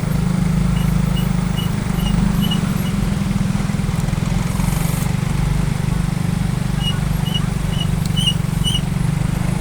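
Diesel tour-bus engine idling steadily, a low even drone. Two short runs of faint high chirps sound over it.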